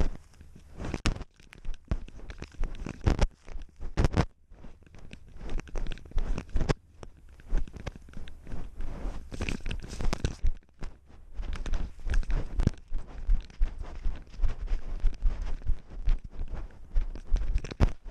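Dry grass and dead stems crunching and rustling as a cat wearing a small action camera moves through them, with the camera scraping against its fur. Irregular crackles and scrapes follow one another closely, with a few louder bumps.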